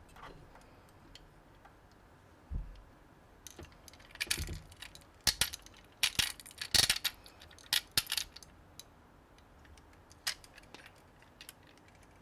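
Unofficial LEGO-compatible plastic building bricks being handled and snapped together: a run of sharp clicks and light plastic rattles, bunched in the middle and thinning out near the end.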